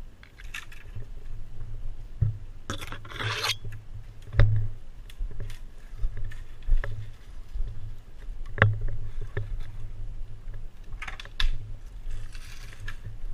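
Dirt bike ridden over rough ground: a low engine rumble under scattered sharp knocks and clatters, with a burst of scraping about three seconds in and again near the end.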